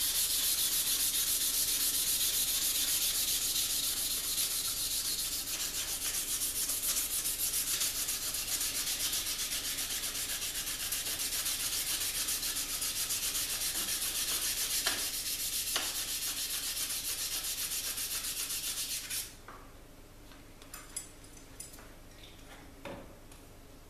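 Sandpaper rubbed by hand over a heat-treated san mai knife blade in quick back-and-forth strokes, taking the blackness off the steel's surface. The sanding stops abruptly about 19 seconds in, and a few light clicks and taps follow.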